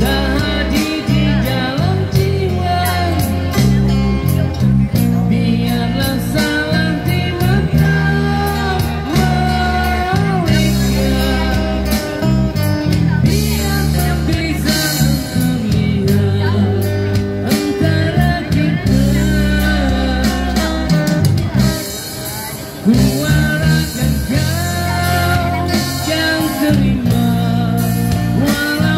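Live amplified band music: a man sings a song into a microphone over strummed acoustic guitar, keyboard and electric guitar, with a heavy bass underneath.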